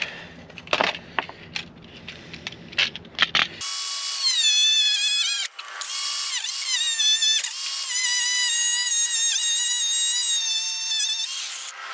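Cordless Bauer power tool cutting through a car bumper bracket. After a few soft clicks it starts up with a loud, high-pitched motor whine, stops briefly, then runs again for several seconds. Its pitch dips and recovers as the blade bites under load.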